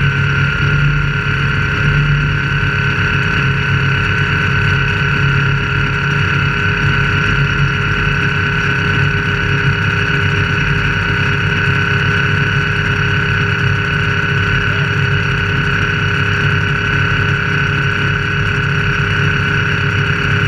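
Off-road race vehicle's engine running at a steady, unchanging pitch, a low rumble with steady high tones over it.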